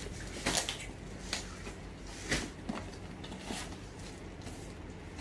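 Plastic packaging of thermal wear rustling and crinkling as it is handled, in a handful of short crackles over a steady low hum.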